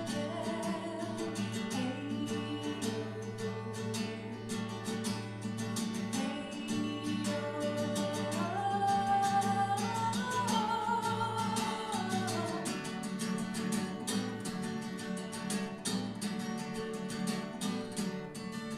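Acoustic guitar playing a folk tune, with a wordless melody line above it that climbs in steps and holds long notes about halfway through: the instrumental passage of an original folk song.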